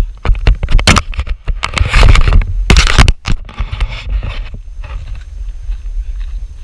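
Footsteps and scrambling on rocks, loose stones and dry burnt brush: crunching, scraping and knocking, loudest about two and three seconds in, over a low rumble on the camera microphone.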